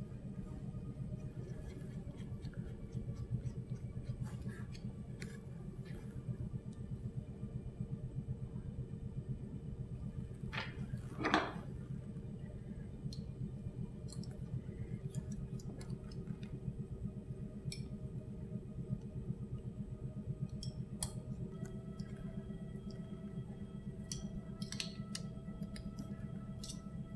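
Faint light metal clicks and ticks of a hex driver turning small socket head cap screws into a steel lathe chuck to lock its camlock retention studs, over a steady low hum. One brief louder scrape comes about eleven seconds in.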